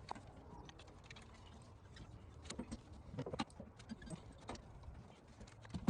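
Faint, scattered metallic clicks and clinks of hand tools and engine parts being handled, with a few sharper knocks about halfway through and near the end.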